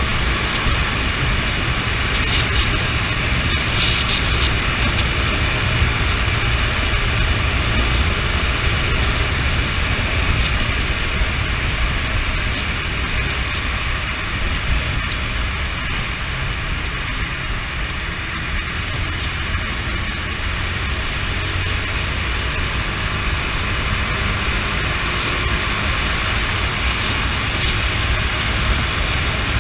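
Honda CB motorcycle running at a steady cruising speed, heard from the rider's seat as an engine drone mixed with heavy wind rush on the microphone.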